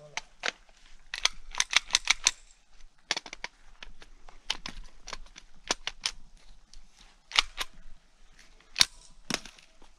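Ruger 10/22 .22 LR rifle firing: a fast string of about six sharp cracks a little after the first second, then single shots and pairs every half second to a second as the shooter moves between targets.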